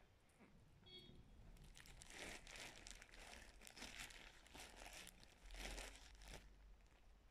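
Cornstarch being squeezed and crushed in a hand close to the microphone: a crisp, squeaky crackling crunch that starts about a second and a half in, is loudest near the end, then stops.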